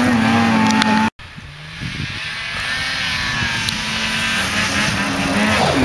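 Snowmobile engine running hard at a steady high pitch, cut off abruptly about a second in. It then comes back quieter and more distant as a steady drone.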